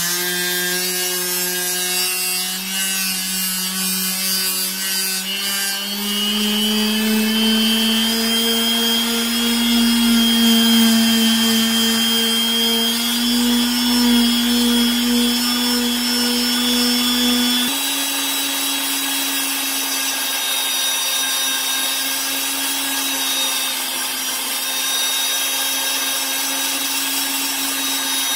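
Rotary tool spinning a felt bob charged with polishing compound inside a gun barrel's chamber, polishing it: a steady motor whine that creeps up in pitch over the first ten seconds, then steps up abruptly about two thirds of the way in and holds.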